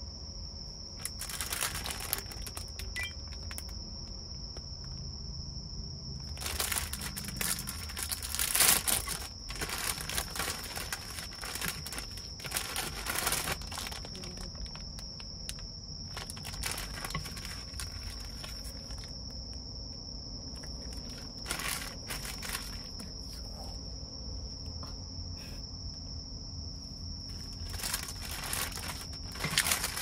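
Plastic food packets crinkling in irregular bursts as they are picked up and handled, the loudest about nine seconds in. Under it, a steady high insect trill, like crickets, runs without a break.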